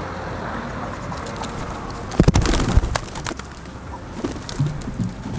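Pigeons cooing in low, soft repeated calls over steady outdoor background noise, with a loud low rumble about two seconds in.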